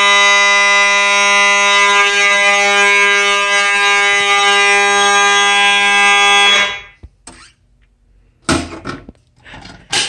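Simplex 2901-9833 fire alarm horn, together with a Fiquench horn, sounding continuously as a loud, steady buzzing tone, then cutting off suddenly about six and a half seconds in as the alarm panel is silenced. A few short knocks follow near the end.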